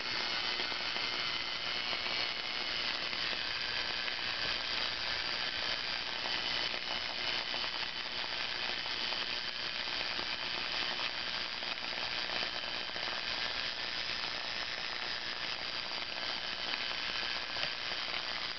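Small brushed universal motor from a paper shredder running fast, overdriven at about 98 volts AC: a steady high whine with crackling from heavy arcing at the brushes and commutator.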